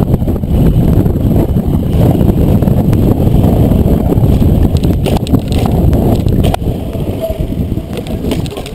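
Wind buffeting the microphone of a camera riding on a mountain bike, together with tyre rumble over paving, with a few sharp rattles of the bike about five to six and a half seconds in. The noise drops off near the end.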